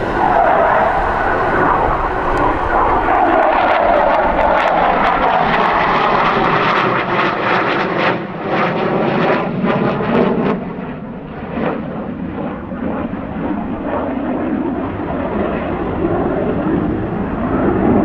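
F-15 fighter jet flying a display pass, its twin jet engines loud and rumbling, with crackling through the middle of the pass. The high end dies away as the jet pulls off, then the sound swells again near the end.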